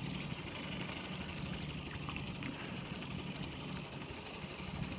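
A boat engine running steadily at low speed, a continuous hum over a constant hiss.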